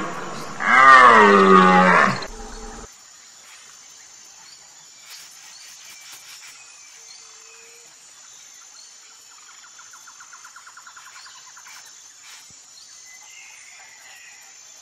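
A loud wavering animal call about a second long, its pitch rising and falling, starting under a second in. After it comes quiet outdoor background with faint bird chirps and a brief fast trill around the middle.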